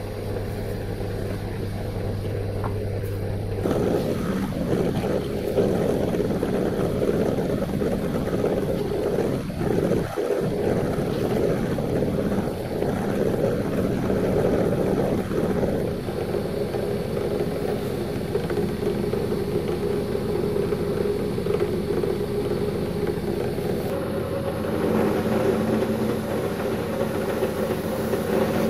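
Bench drill press running a felt polishing bob, with a steel axe head pressed against it to buff the metal: a steady motor hum under the rasp of the steel on the compound-loaded felt. The sound grows louder and rougher about four seconds in, and its pitch shifts a couple of times as the work goes on.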